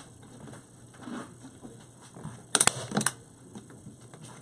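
Staple gun shooting staples: sharp snaps, two close together about two and a half seconds in and a third about half a second later, with soft handling noise between.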